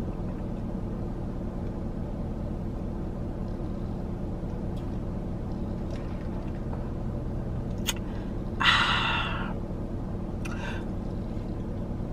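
Steady low hum of a car engine idling, heard from inside the car, with a few faint clicks and a short hiss lasting about a second near the nine-second mark.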